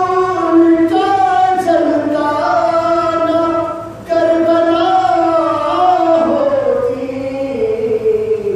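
A man reciting a qasida, singing unaccompanied in long held notes that glide between pitches. There is a short pause for breath about four seconds in, and the melody falls step by step near the end.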